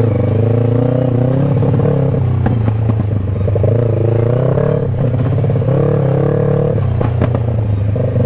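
Sport motorcycle engine running at low speed on a rough dirt trail, its pitch rising and easing off every couple of seconds as the throttle is worked. Occasional short clatters and knocks from the bike going over bumps.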